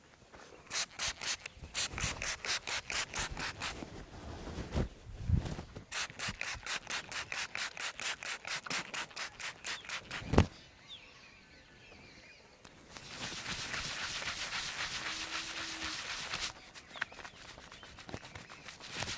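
Hands rubbing briskly back and forth over hair and skin in a head massage, in rhythmic bursts of about five strokes a second, with a sharp thump about ten seconds in. Later comes a spell of steady continuous rubbing, then a few more strokes.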